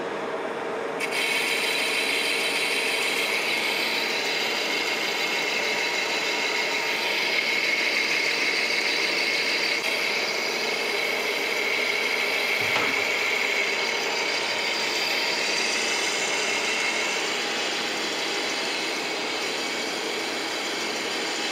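Mori Seiki engine lathe turning a bar of bearing bronze, its insert taking a light cut: a steady cutting hiss with a high whine over the hum of the spinning chuck, starting about a second in.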